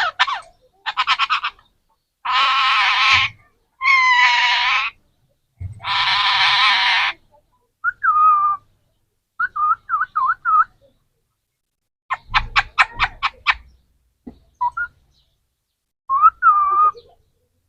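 Parrot calling in a string of separate sounds: three long harsh squawks, quick runs of clicking chatter, and short wavering whistles.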